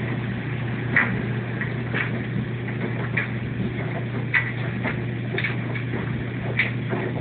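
LG washing machine running: a steady low hum with short, sharp clicks or knocks coming roughly once a second.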